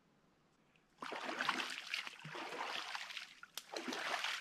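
Lake water splashing as a person standing waist-deep bends over and splashes water on himself, starting about a second in after a near-silent moment, with many quick splashes.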